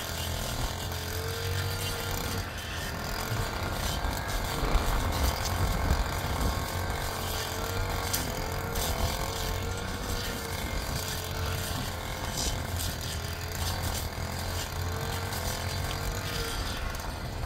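Machinery running steadily, with a constant low hum, a faint wavering tone and a clicking rattle over it.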